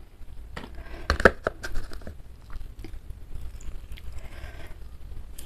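A small lime wedge squeezed by hand over a bowl of soup: scattered soft, wet clicks and squishes, with a faint brief rush of juice about four seconds in.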